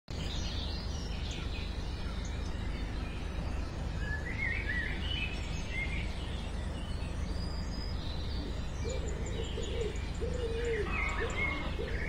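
Birds chirping and calling over a steady low background rumble. From about nine seconds in, a lower call joins, repeated several times.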